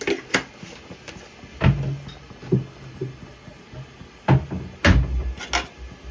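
Irregular knocks and thuds from kitchen work, about seven over six seconds, the heaviest near the middle and near the end.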